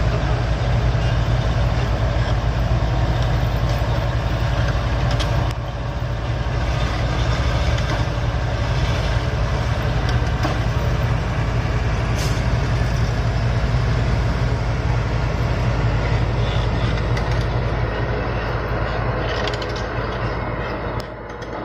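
Heavy diesel engine of a Komatsu bulldozer running steadily. It eases slightly about five seconds in and again near the end.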